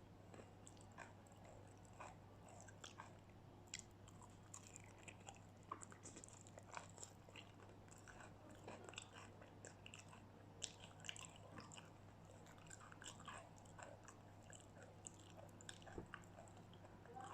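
Chewing and crunching of crispy battered fried food, in a run of many small crisp crunches.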